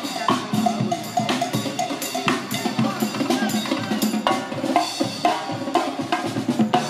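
Music led by a drum kit: repeated bass drum, snare and rimshot strikes over other pitched instruments, stopping abruptly at the end.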